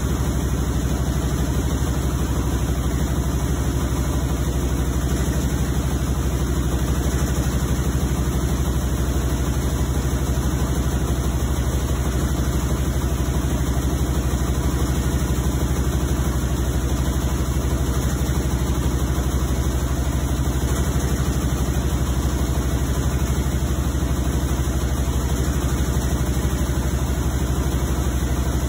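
Whirlpool WTW5010LW top-loading washing machine running with a steady, loud low hum and rumble that does not let up. The owner likens the noise to a freight train, while Whirlpool's technician says it is normal for this machine.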